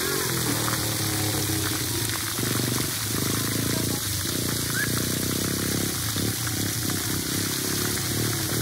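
Splash pad ground jets spraying water onto wet concrete, a steady hiss. A low, even hum comes in twice in the middle.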